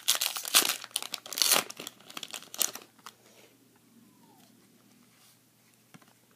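Foil wrapper of a Pokémon trading card booster pack crinkling and tearing as it is opened by hand, for about the first three seconds.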